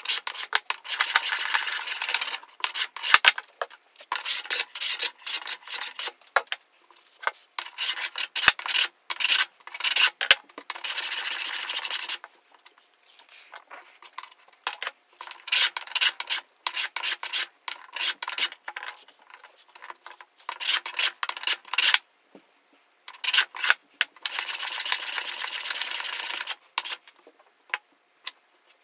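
Hand plane shaving wood off a board in a run of rasping strokes, then a long stretch of quieter handling with small knocks and clicks, and another long planing stroke near the end.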